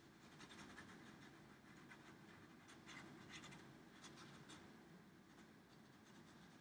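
Felt-tip marker scratching on paper in faint, quick, short strokes as marks are filled in, thinning out near the end.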